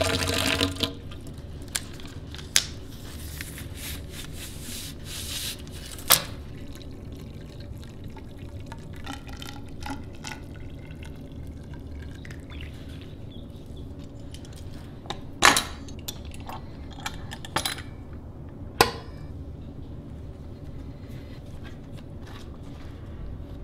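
Water poured from a glass measuring cup into an upright PVC pipe, filling it to soak wood strips for bending; the loud pour stops about a second in. After that a low steady background with a few scattered sharp clicks and knocks from handling the wood strips and tools.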